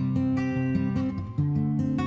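Background music: a solo acoustic guitar playing plucked and strummed notes.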